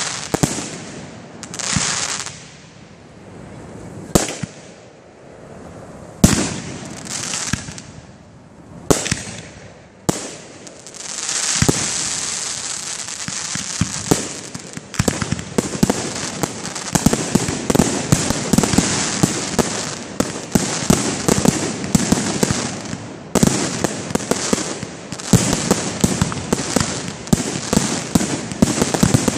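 Aerial firework shells bursting overhead: single bangs one to two seconds apart, each followed by a short crackling tail, then from about eleven seconds a dense, continuous barrage of rapid pops and crackle.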